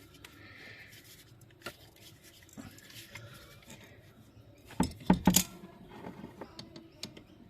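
Small metal tools and parts being handled, with light clinks and clicks and a quick cluster of sharper metallic knocks about five seconds in.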